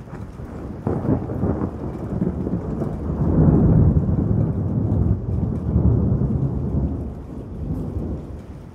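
Thunder rolling: a long rumble that begins abruptly about a second in, builds to its loudest around the middle, then fades away near the end.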